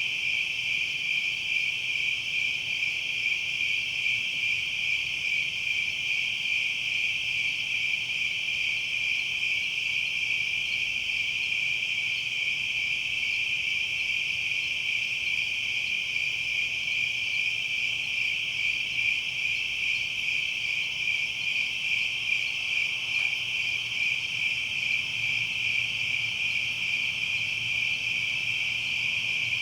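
Chorus of night insects trilling, a dense, steady high-pitched shimmer that never pauses, typical of a late-summer night.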